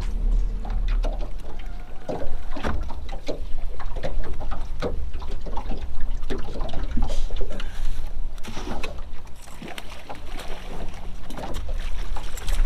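Water lapping and splashing against the hull of a small flat-bottomed fishing boat in irregular slaps, over a steady low hum.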